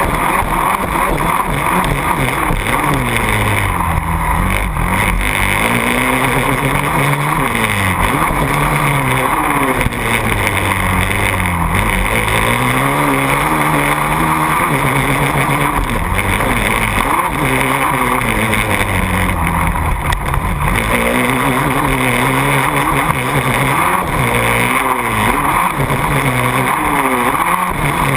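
KTM 450 SX quad's single-cylinder four-stroke engine revving hard and backing off again and again as it is ridden. Its pitch climbs and drops many times with the throttle and gear changes, heard up close from the handlebars.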